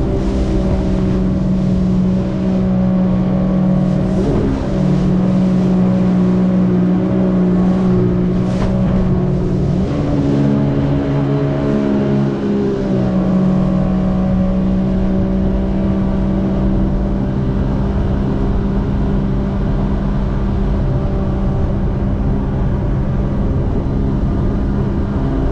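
Jet ski engine running at speed, a steady drone with water rushing past the hull. The engine note wavers and shifts for a few seconds about ten seconds in, then settles back to a steady pitch.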